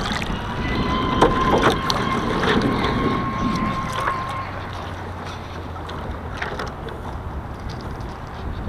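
Wind on the microphone and water rushing past the hull of an IOM radio-controlled yacht under sail, with scattered knocks and ticks in the first few seconds. A faint steady high tone runs from about a second in to about four seconds in.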